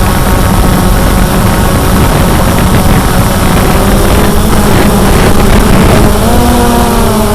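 Cheerson CX-20 quadcopter's brushless motors and propellers running loudly and steadily in flight, a buzzing hum over rushing air. About six seconds in, the pitch of the motors shifts as their speed changes.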